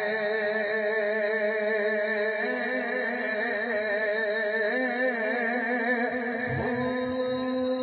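A man's voice chanting Sufi kalam in a drawn-out melodic line without words, its pitch wavering, then gliding up to a steadier held note near the end. A steady high hiss runs underneath.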